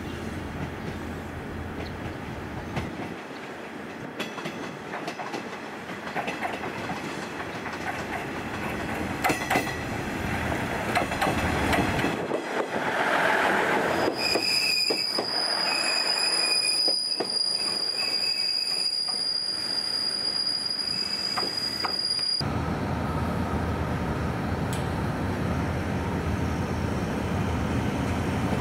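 Electric commuter train running on the rails with a steady rumble and clatter. About halfway through, a high, steady wheel squeal sets in and holds for several seconds before cutting off suddenly.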